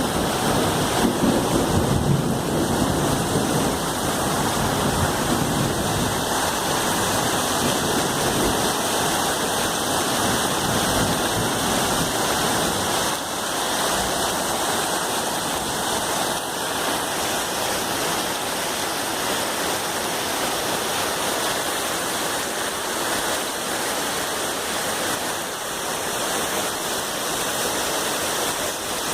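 Heavy summer rain pouring down in a steady, dense hiss, with a low rumble fading over the first few seconds.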